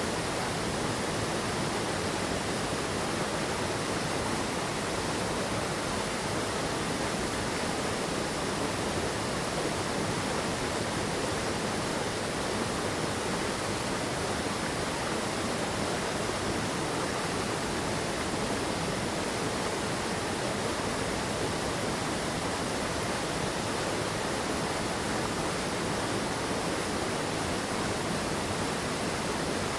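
Mountain stream water rushing in a steady, unbroken wash of sound.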